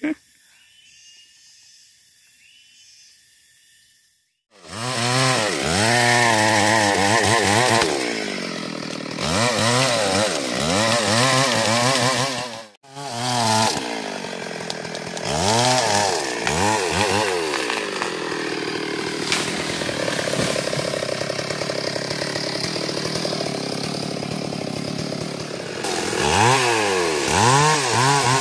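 Stihl MS 382 two-stroke chainsaw, starting loud about four seconds in and revved up and down over and over. It then runs at a steadier, lower pitch while sawing into a mahogany trunk, with more revving near the end.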